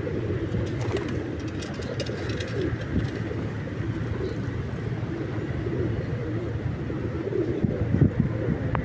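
A flock of feral pigeons cooing, over a steady hum of traffic.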